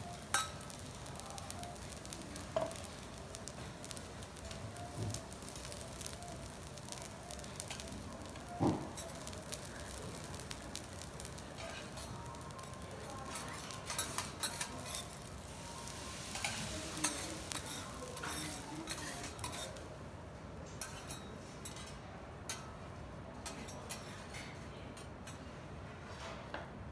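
Garlic fried rice with egg sizzling on a steel teppanyaki griddle while metal spatulas scrape, tap and clack against the steel, gathering the rice and scooping it into a pot. A sharp clack comes about eight and a half seconds in, and the sizzle thins over the last few seconds.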